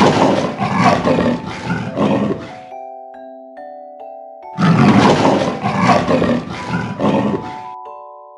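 Leopard calling twice, each call a rough, pulsing roar of about three seconds. A light tinkling mallet-percussion tune plays under and between the calls.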